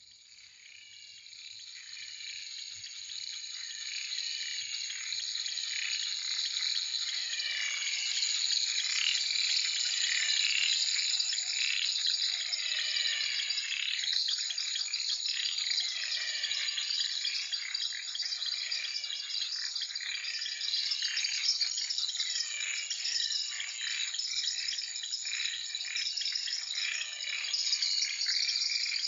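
A dense natural chorus of calling animals: many quick, sweeping calls, rising and falling and overlapping, over a steady high insect drone. It fades in over the first several seconds and then holds steady.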